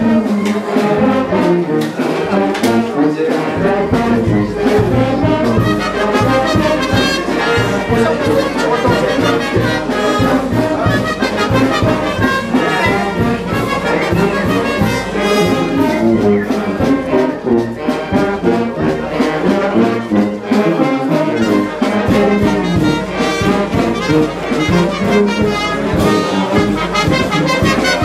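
A brass band of trumpets and trombones playing a dance tune over a steady drum beat.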